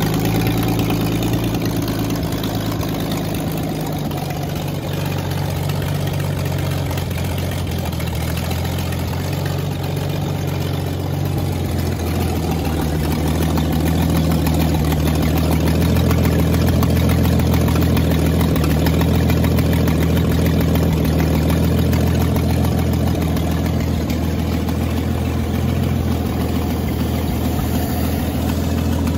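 Lincoln Zephyr flathead V12 engine running at idle on a test stand, steady with small changes in idle speed.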